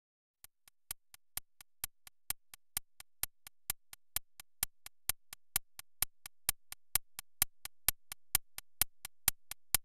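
Steady ticking, about four sharp ticks a second in an alternating strong-weak tick-tock pattern, starting about half a second in and growing steadily louder.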